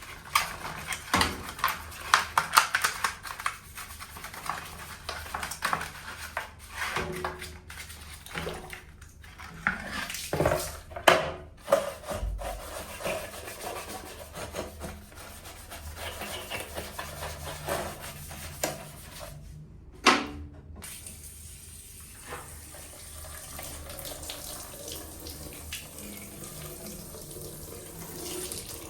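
Water running from a tap into a sink, with a clatter of knocks and clicks from things being handled in the first half.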